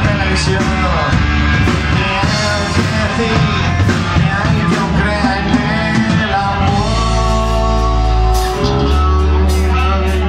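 Live rock band playing: electric guitars, bass and drums with a male lead singer. About two-thirds of the way in, the singing gives way to long held guitar chords over a heavy bass.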